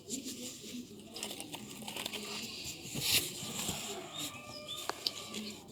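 Gift packaging being handled: paper or plastic crinkling and rustling, with a louder rustle about three seconds in and a few small clicks.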